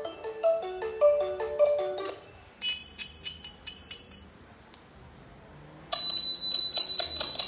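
Video intercom ringtone: a quick marimba-like chime melody that ends about two seconds in, then a few short high beeps. About six seconds in comes a long, loud, high-pitched electronic beep.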